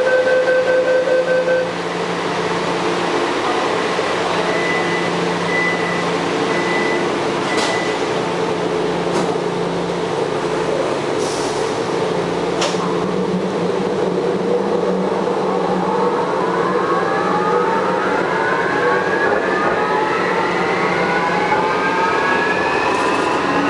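Taipei Metro Wenhu Line Bombardier rubber-tyred train running, a steady rumble with a hum and a few light clicks. From about two-thirds of the way in, a whine of several tones rises steadily in pitch. This train is one the rider singles out for an abnormal running noise.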